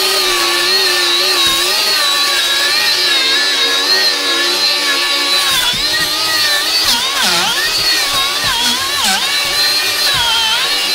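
Milwaukee cordless angle grinder with a knotted wire cup brush running at speed, scrubbing rust off a metal roof. Its steady whine dips in pitch several times in the second half as the brush is pressed harder into the metal.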